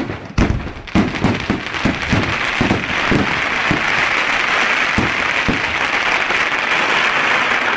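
Aerial fireworks: several sharp shell bursts in the first couple of seconds, then a dense, steady crackling as glittering crackle stars fill the sky.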